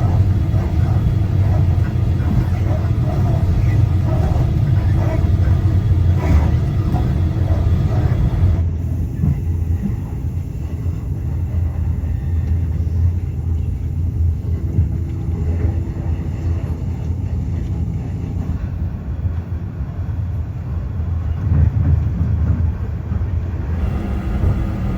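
Steady low rumble of a passenger train running along the track. About nine seconds in the sound abruptly turns duller.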